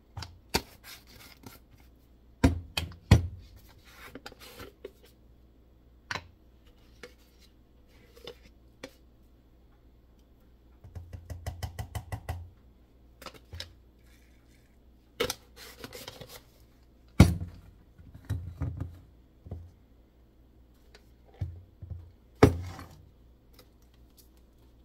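Plastic supplement tubs, their lids and a plastic scoop being handled at a stone countertop while powder is scooped into a plastic shaker bottle. The sound is a string of separate clicks, taps and knocks as lids come off and containers are set down on the counter. About halfway through there is a quick rattling run of small clicks.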